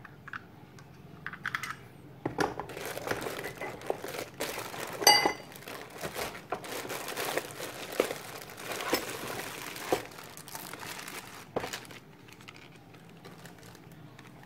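Plastic packaging bags crinkling and rustling as wrapped metal parts of a monitor arm are handled and pulled out of their box, from about two seconds in until about twelve seconds. About five seconds in, a single ringing metal clink is the loudest sound.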